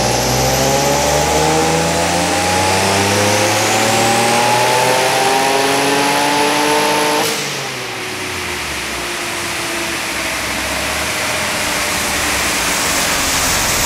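Turbocharged Infiniti G35 coupe's V6 engine making a full-throttle pull on a chassis dyno: the engine note climbs steadily for about seven seconds. Then the throttle closes with a short sharp burst, and the engine drops back and winds down.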